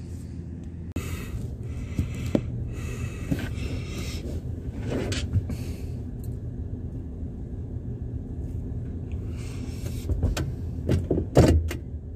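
A vehicle's engine idling steadily, with scattered clicks and knocks from inside the cab and a couple of sharper thumps near the end.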